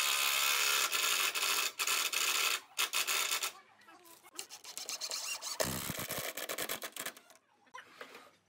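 Cordless drill driving screws into the wooden arm of a swing bench, in a few bursts over the first three and a half seconds. After that, quieter scraping and rubbing of wood as the bench is handled, with a low knock about six seconds in.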